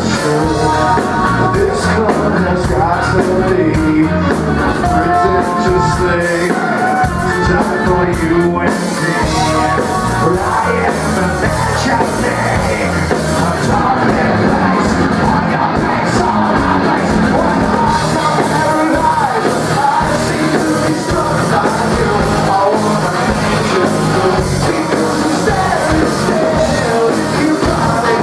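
Rock band playing live at a steady loud level, with a singer.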